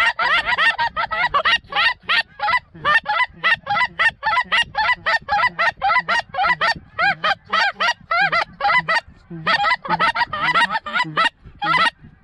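Canada goose calls blown in quick, loud honks and clucks, several a second, calling to a flock of geese in the air over the decoys. The calling breaks off briefly twice near the end.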